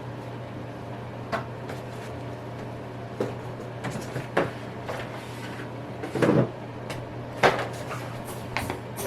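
Scattered light knocks and clicks of household things being handled, with a heavier thud about six seconds in and a sharp knock a second later, over a steady low hum.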